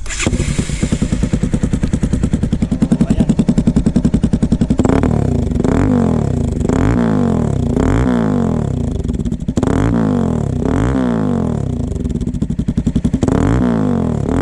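Bajaj Pulsar NS200's single-cylinder engine through a carbon Akrapovic-style slip-on muffler with its silencer insert fitted. It runs steadily for about five seconds, then is revved in a string of short throttle blips, roughly one a second.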